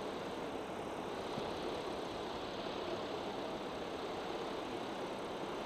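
Cessna 172's engine and propeller throttled back on short final approach, with airflow over the airframe, heard inside the cockpit as a steady, even noise.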